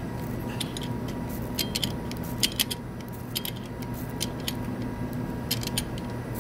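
Light metallic clicks and taps, many short ones scattered through, as an open-end wrench works on nylock nuts set against springs. A steady electrical hum runs underneath.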